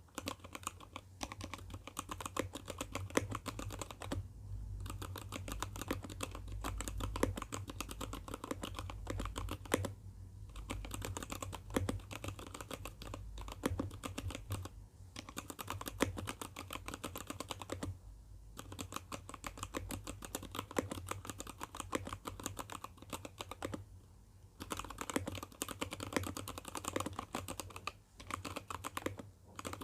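Fast, continuous typing on an ABKO ADK05 mechanical keyboard with Kailh Box Red linear switches and lubricated stabilizers, broken by a few short pauses.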